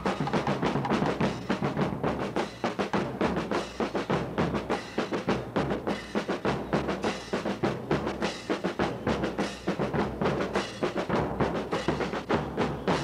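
Marching band drum section, bass drums and snare drums, playing a steady marching beat.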